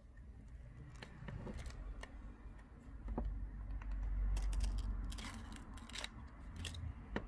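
A plastic card scraping and clicking in short strokes as it is worked along the glued seam between a Samsung Galaxy Xcover 4's digitizer glass and its mid-frame, prying the digitizer loose. A low handling rumble swells in the middle.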